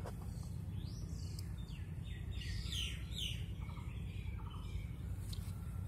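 Birds chirping: a rising call about a second in, then a run of quick sweeping chirps around the three-second mark, over a steady low rumble.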